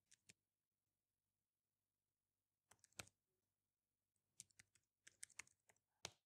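Faint laptop keyboard keystrokes: a few scattered taps, with a small group near the end, over near silence.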